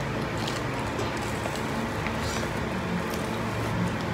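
A steady low rumble and hiss of background noise, with a few faint soft clicks and smacks of people eating rice and side dishes by hand and chewing.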